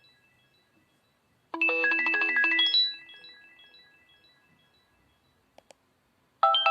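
Samsung Solid Xcover 2 mobile phone playing a short preloaded alert tone: a quick rising run of bell-like chime notes lasting about a second, then ringing away over the next two seconds. Two faint clicks follow, and the next tone starts just before the end.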